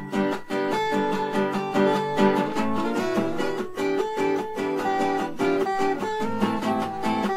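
Background music played on guitar, with strummed and picked chords.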